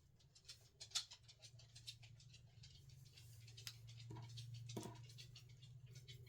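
Faint scattered clicks, ticks and scratches of small craft materials being handled and worked by hand on a tabletop, over a low steady hum.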